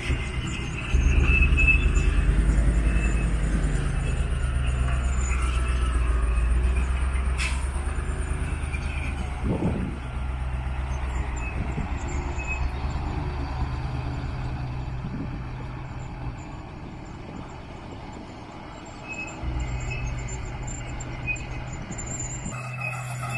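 Daewoo dump truck's diesel engine running as the truck drives on a dirt road: loud a second in, easing off over the middle, and rising again near the end.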